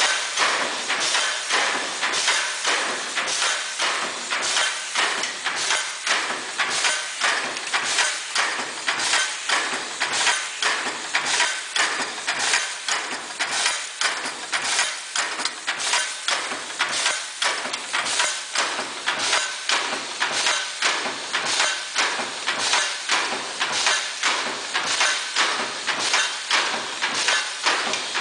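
YCH-6000B double-station card hot stamping machine running, its card feed and stamping mechanism clattering in a quick, even rhythm of sharp clicks and knocks, several a second.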